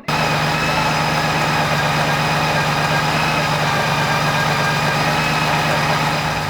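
Honda Gold Wing GL1800 flat-six engine running steadily at idle, freshly rebuilt and started for the first time after the gearbox repair.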